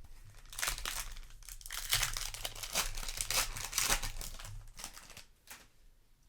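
Foil play booster pack wrapper crinkling as it is handled and torn open, a dense run of crackles that dies down about a second before the end.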